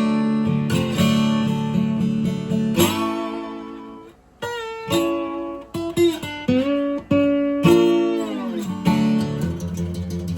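Acoustic guitar music, notes plucked and strummed, several of them sliding or bending in pitch, with a brief break about four seconds in.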